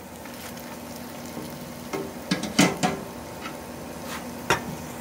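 Hot oil sizzling in a deep fryer as a wire fry basket of fried catfish is lifted out and tipped onto a glass dish, with a quick cluster of metal clanks about two and a half seconds in and one more knock near the end. A steady electric hum from an ice cream maker runs underneath.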